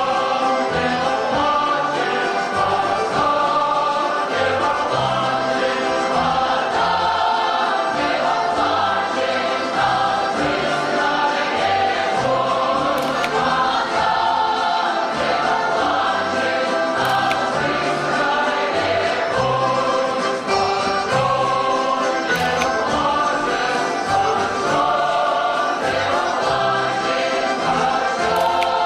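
Background music with a choir singing over a steady bass line.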